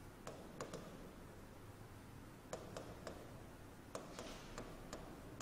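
Faint, irregular sharp ticks of a stylus tapping and stroking a touchscreen as words are handwritten, about ten in all.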